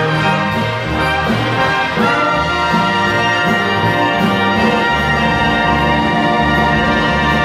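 Live big band playing, with saxophones, trombones and trumpets holding chords over a steady pulsing bass line.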